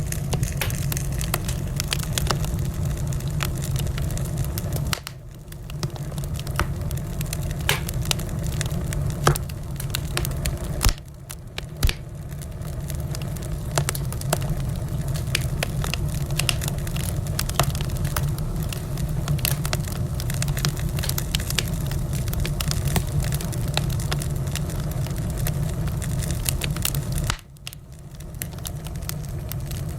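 Wood fire crackling, with frequent sharp pops over a steady low rumble. The sound drops away briefly three times, about five, eleven and twenty-seven seconds in.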